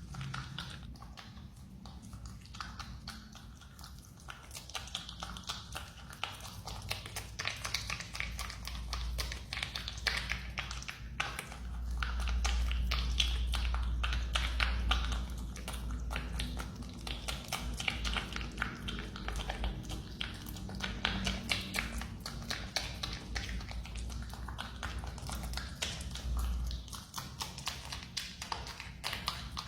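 A marmot chewing banana: a steady run of fast, close clicks and smacks from its teeth and mouth. A low hum sits underneath through the middle stretch.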